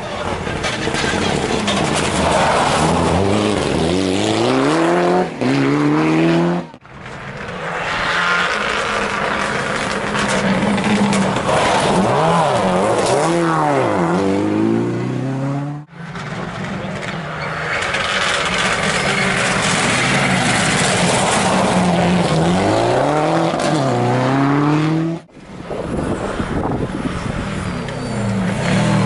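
Rally cars at full competition pace, one after another: each engine revs hard, its pitch climbing and falling repeatedly through gear changes and lifts as the car approaches and passes. The sound cuts off abruptly three times as one car gives way to the next.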